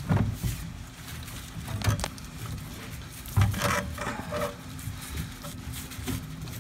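Irregular knocks, scrapes and rubbing as a vacuum brake booster's steel shell is worked loose by hand and slid out past hoses and wiring, with a cluster of knocks about halfway through.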